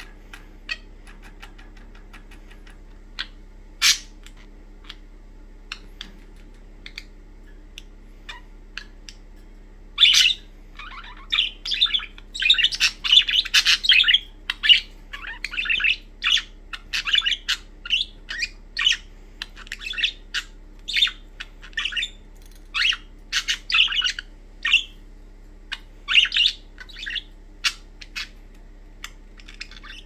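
Budgerigars chirping and squawking in quick, loud calls, busiest from about ten seconds in. Before that there are only scattered light clicks.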